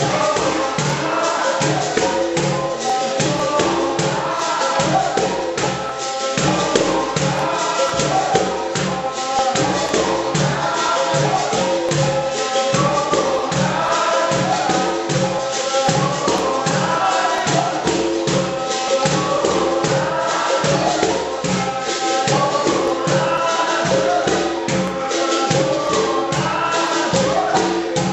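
Capoeira Angola roda music: berimbaus and a pandeiro playing a steady beat under group singing.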